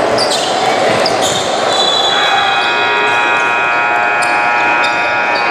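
Basketball game noise in a gym: a ball bouncing, short high sneaker squeaks and crowd chatter. About two seconds in, a steady electronic scoreboard buzzer starts and holds on through the end.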